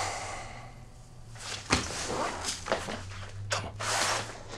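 A breathy exhale at the start, then rustling of clothing and creaks of a leather armchair as a man shifts and gets up, with a few sharp clicks and knocks in the middle and an exhale near the end.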